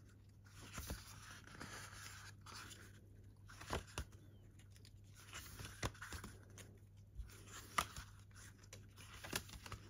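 Faint rustling of paper with light taps and ticks every second or so: the pages of a photo book being leafed through and handled.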